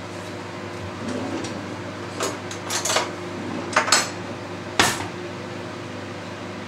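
Crockery and cutlery clinking in the kitchen: about half a dozen sharp clinks between two and five seconds in, over a steady low hum.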